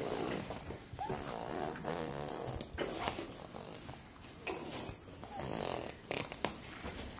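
A baby making breathy, grunting vocal sounds while crawling, with a few sharp clicks of plastic toy rings against the floor.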